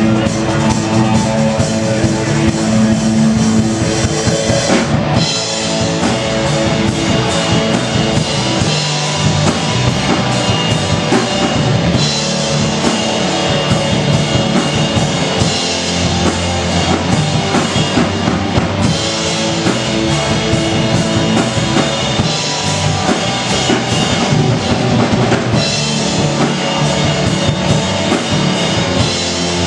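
Live rock band playing loud: electric guitars and bass over a drum kit keeping a steady beat. The music shifts to a new section several times.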